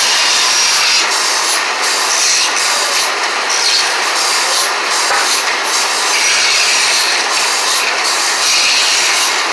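Bandsaw blade cutting through a thick wooden block: a loud, steady sawing noise that lightens briefly several times as the cut goes on.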